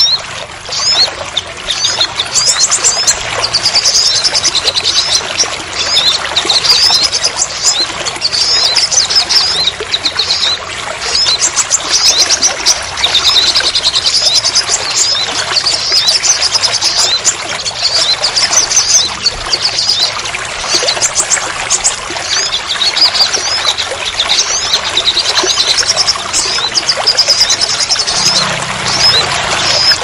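Rain falling and water pouring steadily, with a small songbird twittering in quick high chirps throughout.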